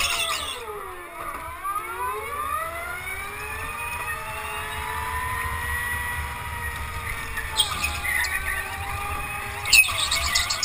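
Go-kart's motor dipping in pitch about a second in, then climbing as the kart speeds up. Its tyres squeal briefly in the corners at the start and twice near the end.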